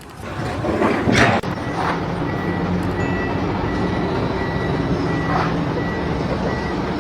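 A heavy vehicle's engine running with a reversing alarm beeping about twice a second. There is a louder noisy swell about a second in.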